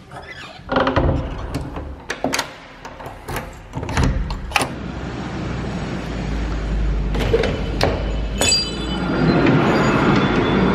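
Clicks and knocks of a wooden door's handle and lock being worked. Then a street tram passes with a steady low rumble and a brief high-pitched squeal about two-thirds of the way through, and the traffic noise grows louder near the end.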